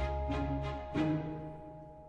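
Background music: a light tune of struck, chiming notes over a held tone and a bass line, fading down toward the end.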